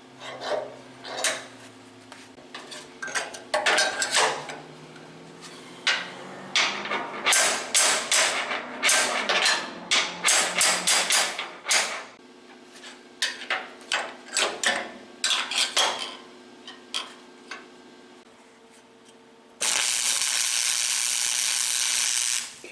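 Hammer and metal strikes on steel parts of a fabricated rack: many sharp clanks and taps in irregular clusters. Near the end a loud, even hiss-like noise runs for about three seconds, then cuts off.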